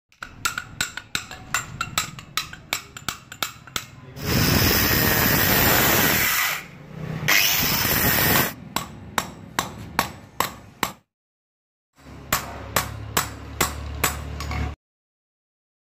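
A hammer taps a steel pin through a shovel's D-handle and wooden grip, about three to four taps a second. An angle grinder then cuts the pin for several seconds, dipping briefly in the middle. More hammer taps follow, peening the pin end over, and stop abruptly twice.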